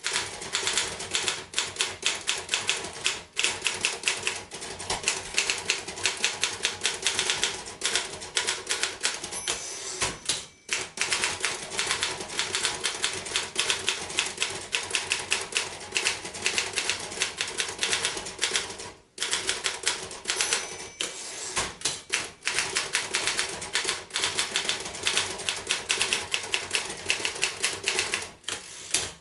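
1950 Royal KMG manual typewriter being typed on: a fast, steady run of sharp key and typebar strikes, several a second, broken by a few brief pauses.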